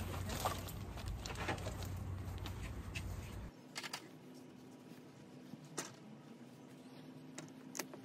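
Faint paper-towel rustling and a few soft scattered clicks as excess cement is wiped off a PVC drain pipe and its repair coupling. A low background rumble under the first few seconds cuts off suddenly.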